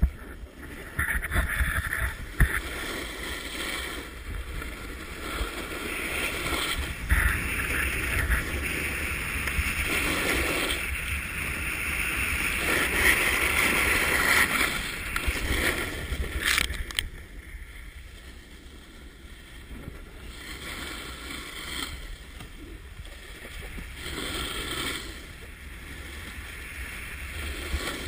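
Rushing, scraping noise of riding down a groomed ski slope: wind buffeting a GoPro Hero2 in its housing and edges sliding on packed snow. It is loudest in the middle, with a sharp knock about sixteen and a half seconds in, then eases to a softer hiss.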